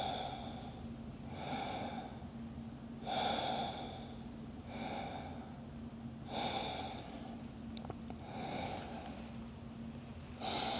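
A woman breathing slowly and audibly, in and out, while holding a yoga stretch: about seven soft rushes of air, one roughly every second and a half, the paced breathing of a held pose.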